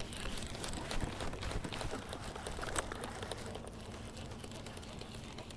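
Fishing reel being cranked to bring in a small hooked bass: a run of quick light clicks with a few sharper ticks, easing off towards the end.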